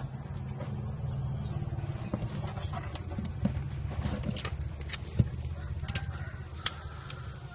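Box turtle shells knocking and scraping against each other and the plastic tub as a hand lifts one of the turtles, a scatter of sharp clicks over a steady low hum.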